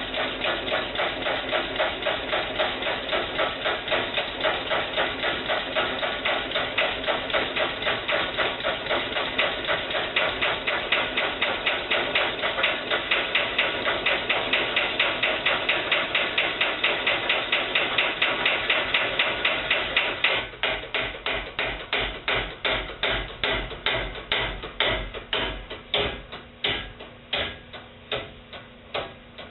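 Homemade compressed-air piston engine running, giving a rapid, even knocking with each stroke. About 20 seconds in, the knocks spread out and get quieter as the engine slows down.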